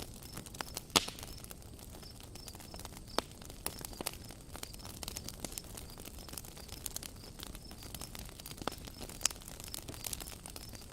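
Wood fire crackling steadily with scattered sharp pops, the loudest about a second in.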